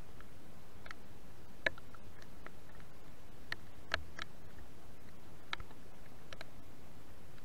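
Light, irregular ticks and taps, about one or two a second, the sharpest near 1.7 and 4 seconds in, over a steady hiss.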